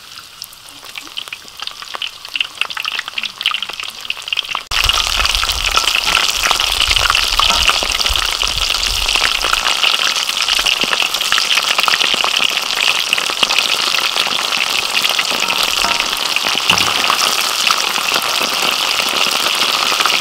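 Batter-coated shrimp deep-frying in a wok of hot oil: a dense sizzling and crackling. It is sparse and quieter at first, then turns loud and steady all at once about five seconds in.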